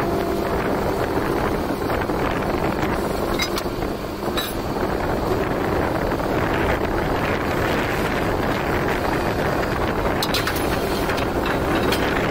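Kiran borewell drilling rig running steadily with a loud, even machine noise, with a few short clicks.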